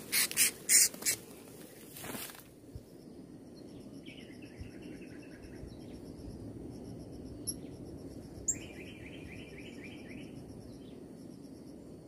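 A few loud rustling knocks in the first two seconds, then insects calling in a steady, fast, high pulsing. Twice a lower, buzzier run of quick pulses joins in, and there are two sharp high chirps.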